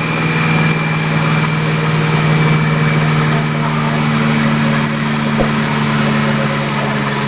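Concrete mixer truck's diesel engine running steadily, driving the turning drum as it discharges concrete down the chute.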